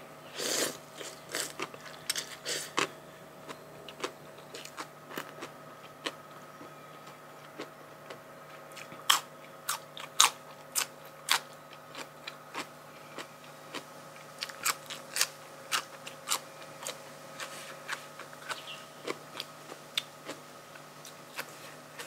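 A person biting and chewing crunchy food: a string of short, sharp crunches at an uneven pace, loudest about nine to ten seconds in.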